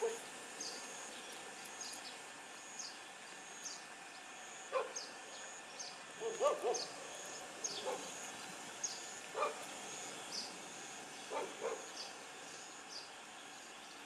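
A dog barking several times in short calls, some in quick pairs. Short high chirps repeat about once a second in the background.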